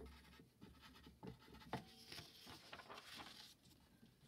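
Faint scratching and small taps of a writing tool on paper as a die face with four dots is drawn.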